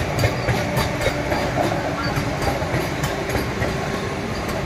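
Vande Bharat Express electric trainset rolling slowly past. It makes a steady rumble and hum, with its wheels clicking over the rail joints.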